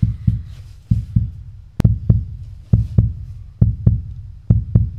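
Heartbeat sound effect: low double thumps (lub-dub) repeating steadily, about one beat a second, standing for a pounding heart.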